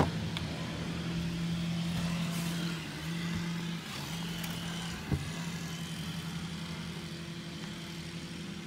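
2018 Ford Fusion SE's engine idling with a steady low hum, with a single knock about five seconds in.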